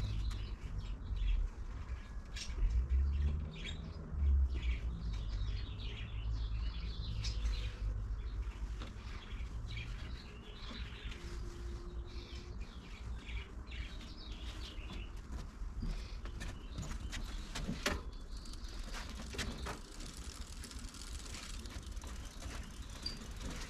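Birds chirping on and off, with a low rumble through the first half and a couple of sharp knocks about three-quarters of the way through.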